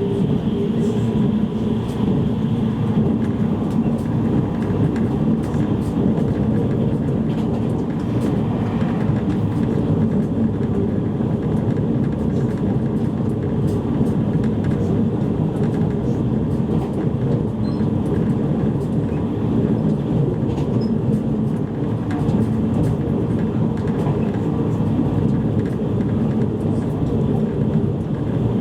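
Inside the cabin of a JR East E653 series electric train (a motor car) running at speed: a steady rumble of wheels on rail with a constant hum and occasional light clicks.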